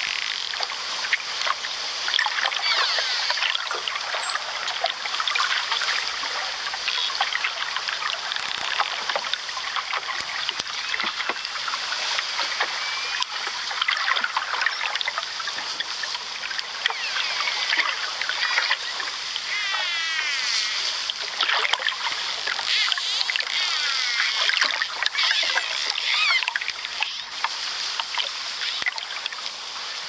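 Running water splashing and trickling steadily, with repeated chirping trills over it.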